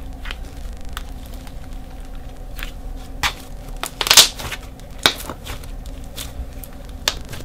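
Thick slime mixed with Daiso clay being stretched and squeezed by hand, making sharp pops and crackles; the loudest pop comes a little past the middle. The clay has made the slime thick and hard to stretch.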